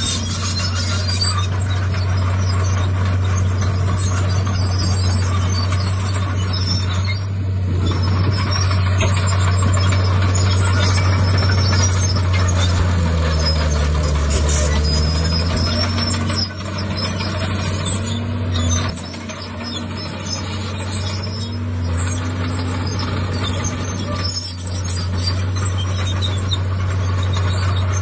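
Heavy diesel earthmoving machinery running under load: a steady, deep engine drone, with a few rising and falling tones about halfway through.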